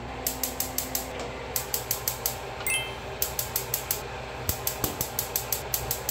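Gas range burner's electronic spark igniter clicking rapidly, about five clicks a second, in several runs with short pauses while the knob is held at light, over a steady low hum. The burner is slow to catch, and unburnt gas can be smelled.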